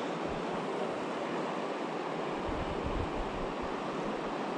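Mountain river rushing over rocks: a steady, even rush of flowing water, with a few low thumps about halfway through.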